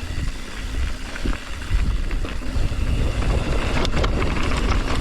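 Mountain bike riding fast down a rough dirt and rock trail: wind rumbling on the camera's microphone, with scattered clicks and rattles from the bike over the bumps. It gets louder about two seconds in.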